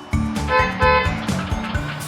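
Cartoon background music with a steady, repeating bass beat, and two short horn-like toots about half a second and a second in.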